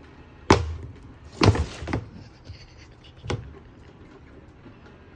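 A cat swatting at a toy: a sharp knock about half a second in, a short rustling scuffle around a second and a half, and another knock past three seconds.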